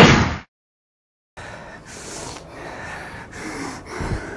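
A single pistol shot that cuts the music off, followed by about a second of dead silence. Then a person's close breathing comes in, soft puffs of breath repeating about twice a second.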